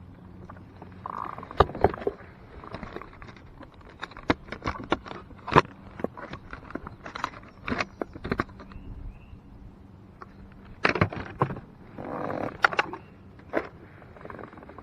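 Irregular sharp clicks and knocks of fishing gear being handled in a small plastic bass boat, over a faint steady hum.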